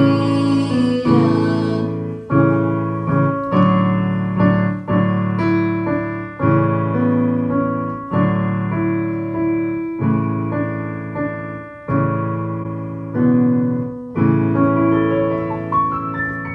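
Digital piano played solo: chords struck about once a second, each ringing and dying away before the next.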